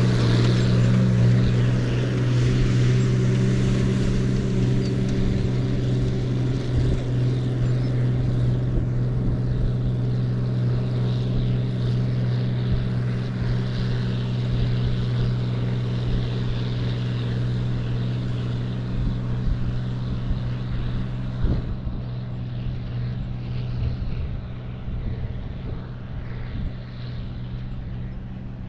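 Tractor engine pulling a fertilizer spreader, running at a steady pitch and fading as it drives away across the field.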